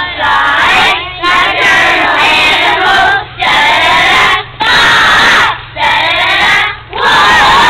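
A class of young children singing together in unison from lyric sheets, loudly, in phrases about a second long with brief pauses between them.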